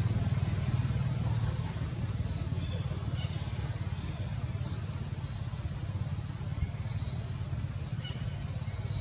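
Birds chirping outdoors: short, high, rising chirps repeated about once a second, over a steady low rumble.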